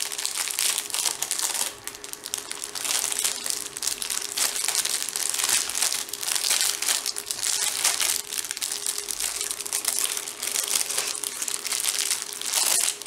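Plastic packaging of a diamond painting kit crinkling continuously as it is handled.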